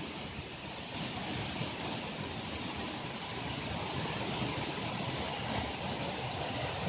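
Waterfall's steady rushing water.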